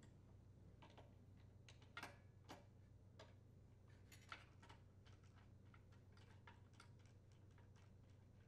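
Faint, irregular small clicks and taps of a nut driver threading a shoulder bolt into a small-engine carburetor's air-vane linkage, a few slightly louder ticks about two seconds in and past four seconds, over near silence.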